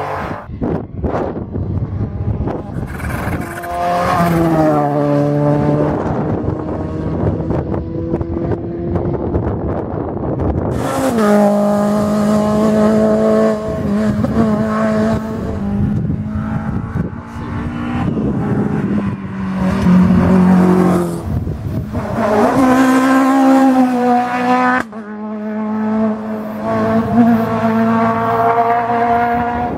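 Rally cars at full throttle on a tarmac stage, one after another. Their engines rev hard, the pitch climbing and then dropping in steps at each gear change as they approach and pass.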